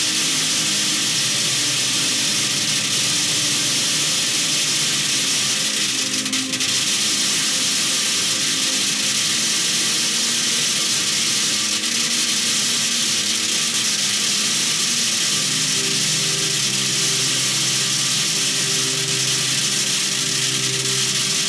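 Metal BBs pouring onto the side of a tin can without a break, so many that the single strikes run together into one steady metallic rattle.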